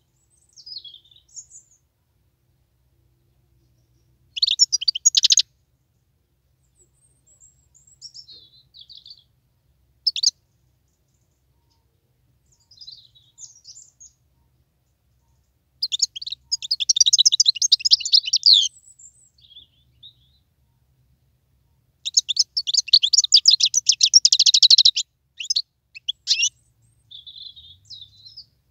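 Wild-caught European goldfinch singing: quiet twittering phrases broken by three loud bursts of rapid, high-pitched trilling, the two later ones about three seconds each.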